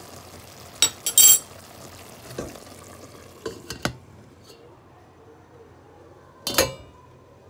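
Metal spoon clinking and scraping against a stainless cooking pot and its glass lid, several sharp ringing clinks, the loudest about a second in and another near the end. A faint sizzle from the olive-oil eggplant stew on the heat underneath fades away about halfway.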